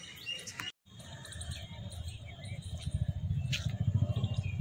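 Wind buffeting the microphone, a low gusty rumble that builds and is loudest near the end, with small birds chirping.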